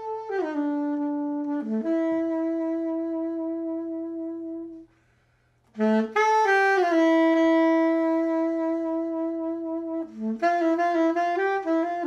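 Solo soprano saxophone playing a slow jazz melody in long held notes that slide from one pitch to the next, with a brief break about five seconds in.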